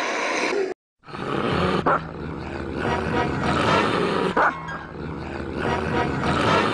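Small black-and-tan dog growling, with two short, sharp barks about two and a half seconds apart. The sound cuts out for a moment about a second in.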